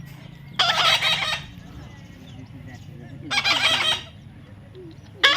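A baby parrot squawking: two loud, harsh calls of under a second each, about two and a half seconds apart, with another starting at the very end.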